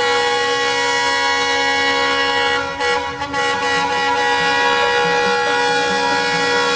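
Locomotive air horn blowing one long, steady blast of about seven seconds, starting and stopping abruptly, with a brief waver about three seconds in.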